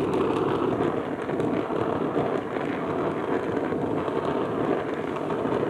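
Gas torch flame burning steadily, a constant rushing noise, as it heats a copper head gasket towards red heat to anneal it.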